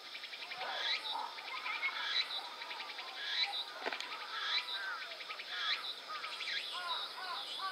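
Woodland birds calling, a short call with a falling sweep repeating about once a second, over a steady high background hum. A single sharp click about four seconds in.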